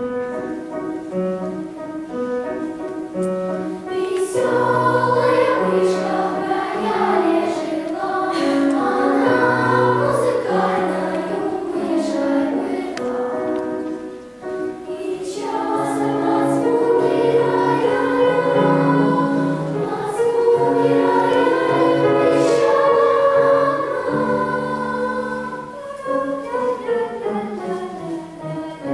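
Children's choir singing a song in unison, with low piano accompaniment underneath.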